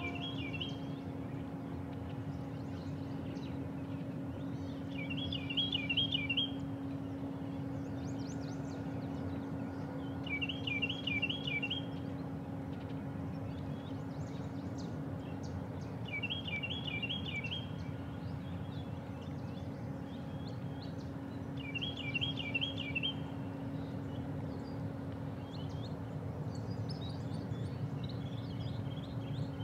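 A bird singing a short, fast trill of about a second, repeated six times at roughly five-second intervals, the last one a little higher. Under it runs a steady low hum.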